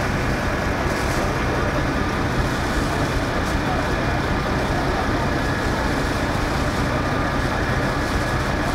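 Fire engine engine running steadily at idle, a continuous low rumble with an even hum.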